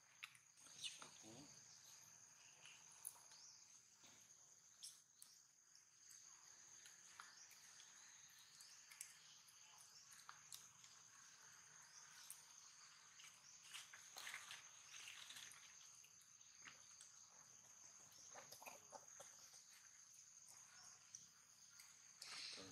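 Near silence: a faint, steady, high insect drone, with scattered faint clicks and rustles.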